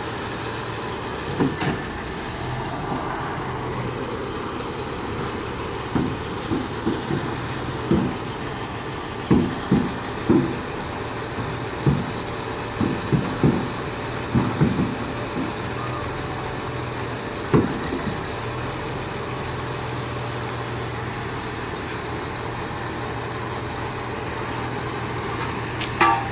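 Heavy diesel engine idling steadily, with a run of short knocks and clanks through the middle.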